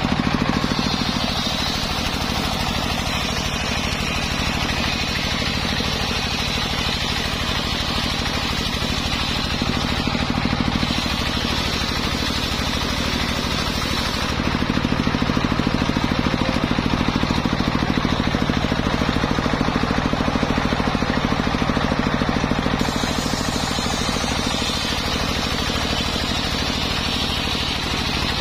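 Homemade belt-driven circular saw rig ripping a jackfruit log lengthwise: a steady engine drone with the blade's cutting hiss over it. The sound gets louder and deeper from about 14 seconds in and eases back about 23 seconds in.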